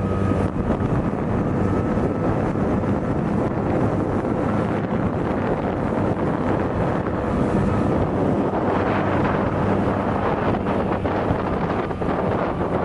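Tohatsu 20 hp EFI four-stroke outboard running steadily at full throttle with the inflatable boat on the plane, its engine tone held level under heavy wind buffeting on the microphone and water rushing past the hull.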